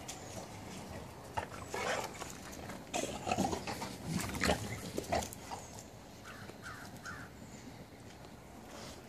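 Two pit bull puppies play-fighting: scuffling on dirt with short growls and snarls in an irregular run. The run is loudest from about one and a half to five and a half seconds in, then eases off.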